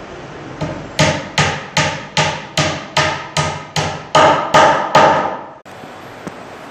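A hammer striking a plywood sheet along its edge in a steady run of about a dozen even blows, roughly two and a half a second. Each blow rings briefly, and the run cuts off abruptly near the end.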